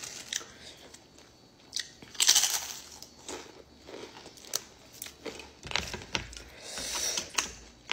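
Lay's potato chips crunching as they are bitten and chewed, the loudest crunch about two seconds in and more near the end, with light clicks and rustles of food being handled.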